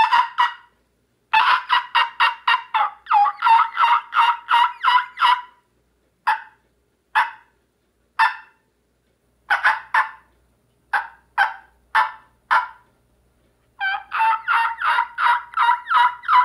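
A man imitating wild turkey calls with his own voice, hand cupped to his mouth: runs of short, sharp, high-pitched yelps about four a second, broken by a few single calls. This is the high, aggressive calling meant to get a gobbler fired up.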